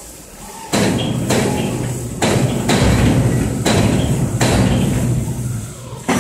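A run of heavy metallic knocks and clanks, about seven spread unevenly over five seconds, over a steady low hum, from steel machinery in a welding shop.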